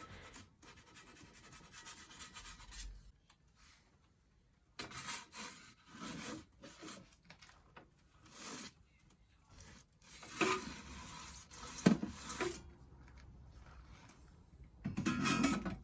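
Pizza peel scraping and rubbing against the hot oven floor in short intermittent spells as the pizza is turned in the wood-fired oven, with near-silent gaps between.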